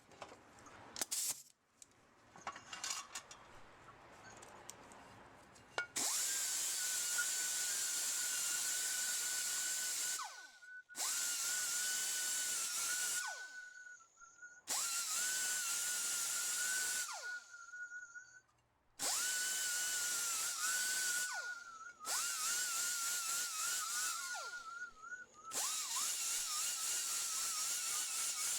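Handheld air tool whining at high speed with a hiss of exhaust air, run in six bursts of a few seconds each from about six seconds in. Its pitch drops away as it spins down between bursts. Before it, a few light clicks of parts being handled.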